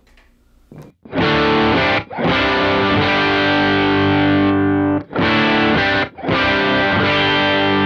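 Electric guitar played through a Kemper Profiler with its compressor stomp set near transparent: chords strummed and left to ring, starting about a second in, with brief breaks about two, five and six seconds in.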